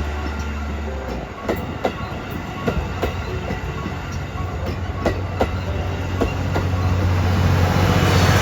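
Steam-hauled passenger train rolling by, its wheels clacking irregularly over rail joints, growing louder near the end.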